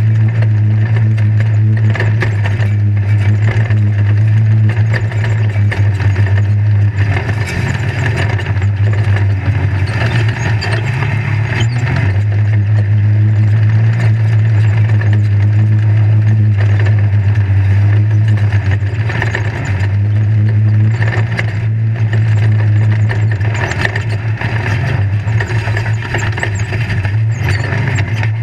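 Off-road race vehicle's engine running steadily under load, heard inside the caged cab, with constant rattling and knocking from the chassis and cage over rough dirt.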